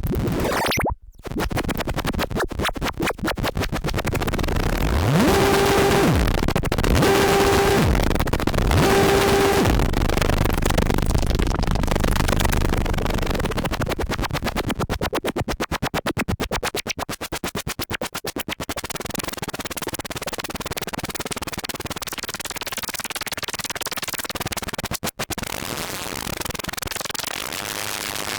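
Behringer Crave analog semi-modular synthesizer playing a harsh, noisy sound-effect patch that stutters in rapid pulses. Three short pitched notes, each with an upward sweep into it, come about five to nine seconds in, and the pulsing turns faster and choppier around the middle.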